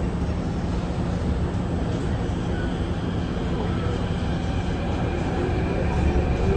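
Kawasaki & CRRC Sifang CT251 metro train running, heard from inside the car, with a steady rumble. From about halfway in, the traction motors give a whine that rises in pitch as the train picks up speed leaving the station.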